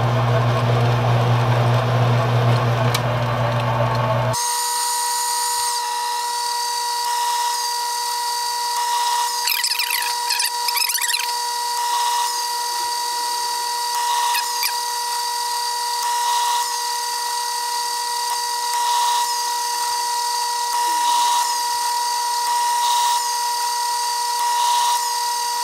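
Mini lathe running under power while screw-cutting a thread in aluminium: a low hum with a steady whine that drops out abruptly about four seconds in, leaving only the steady high motor whine. Brief chirping sounds come around ten seconds in.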